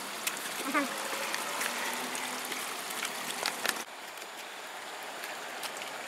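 Steady rushing of river water, an even hiss, with a few light clicks and knocks over it. About four seconds in it drops slightly in level and goes on steadier.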